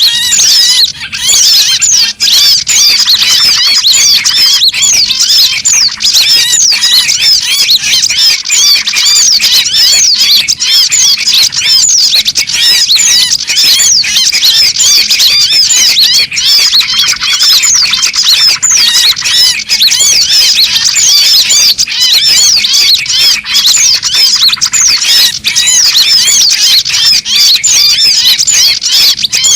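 Bird-lure recording of small birds calling: a loud, dense, unbroken chorus of many overlapping short high chirps, each sweeping downward in pitch, several a second.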